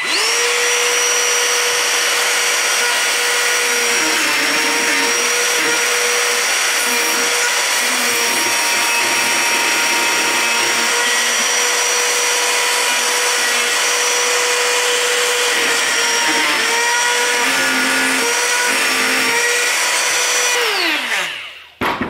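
Ryobi 18V cordless trim router starting up and running with a steady high whine while its bearing-guided bit cuts a hinge recess in a timber door through a plastic template, its pitch dipping slightly at times as the bit cuts. Near the end it is switched off and its whine slides down as it winds down.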